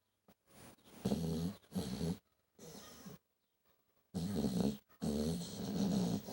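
A sleeper snoring in a series of rasping, pitched snores, about five of them, the last one longer.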